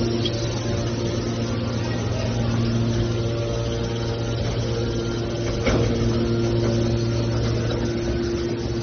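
Hydraulic metal baler's power unit running with a steady hum, and a single knock a little over halfway through.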